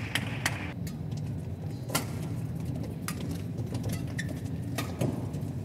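Badminton rackets striking a shuttlecock during a doubles rally: a handful of sharp cracks spaced irregularly, a second or more apart, over a steady low hall hum.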